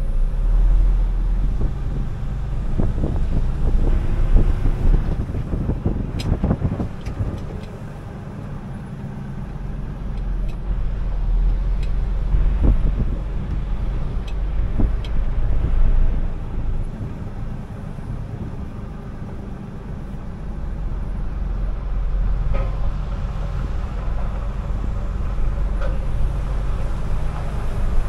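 Heavy truck driving: a steady low engine rumble that dips twice and builds again, with scattered rattles and knocks.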